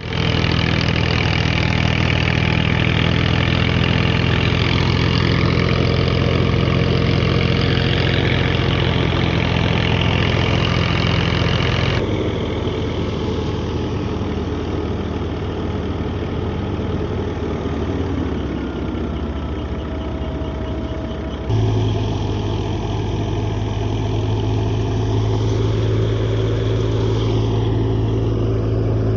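Massey Ferguson 240 tractor's three-cylinder diesel engine running steadily under load, driving a mustard thresher through its PTO shaft while the thresher churns and blows out chaff. The sound drops abruptly about twelve seconds in and jumps back up about twenty-one seconds in.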